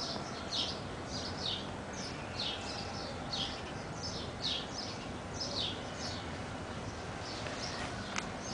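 A songbird calling over and over, short high falling chirps mostly in pairs about once a second, over a steady low background hum. One sharp click near the end.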